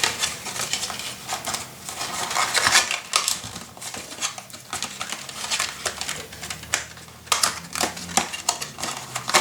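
Cardstock and paper being handled and fitted together: rustling and sliding with many small clicks and taps throughout.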